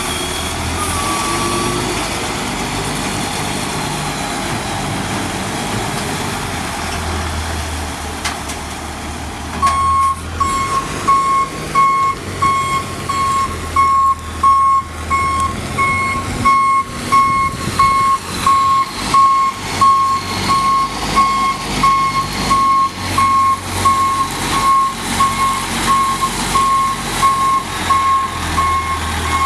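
A 1999 International 4900 dump truck's DT530 diesel engine running. About ten seconds in, its backup alarm starts beeping about once a second, a steady high beep that means the truck is in reverse.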